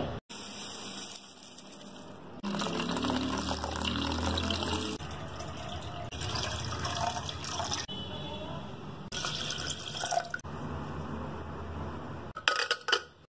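Water running and sloshing as soaked black lentils are rinsed, heard in several short clips that cut abruptly from one to the next.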